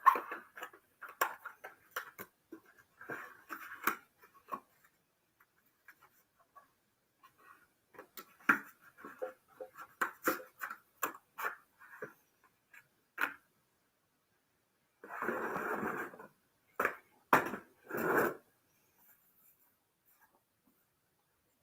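Hands handling gadget packaging and small parts: a run of light clicks, taps and rustles. About 15 seconds in there is a short rustle, followed by a couple of sharper knocks and another rustle.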